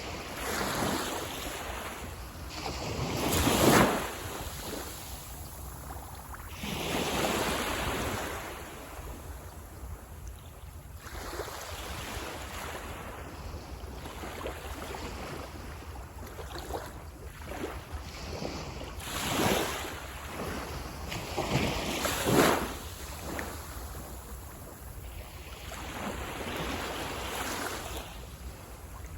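Waves breaking and washing on a beach, one swell of surf every few seconds, the loudest about four seconds in and again about twenty-two seconds in.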